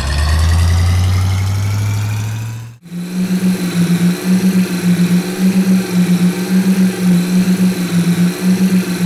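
Engine sound effects for cartoon monster trucks: a steady running engine for nearly three seconds that cuts off abruptly, then a lumpy idling engine pulsing about three times a second.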